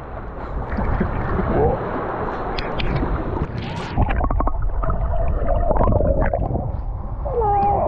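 Sea water sloshing and bubbling around an action camera as it goes under the surface about halfway through, after which the sound is muffled and underwater. A few wavering pitched tones come through, the longest in the second half and another bending one near the end.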